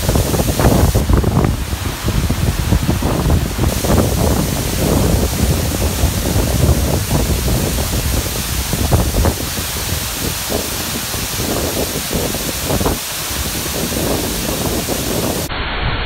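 A waterfall's water falling and crashing in a steady, loud rush, with wind buffeting the microphone. Near the end the sound turns duller.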